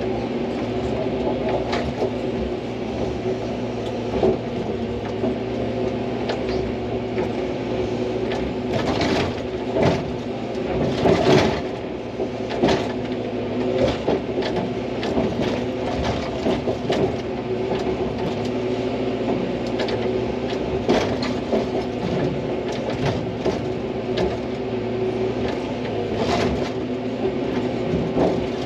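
Hydraulic excavator's diesel engine running steadily under work, with scattered knocks and clanks as the machine digs. The knocks are loudest around the middle.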